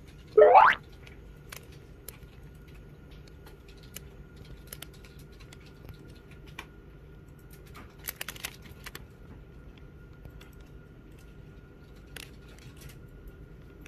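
A short, loud rising whistle-like sound effect about half a second in, then faint crinkling and clicking of a clear plastic bread wrapper handled in the hand, heaviest about eight seconds in and again near the end, over a faint steady hum.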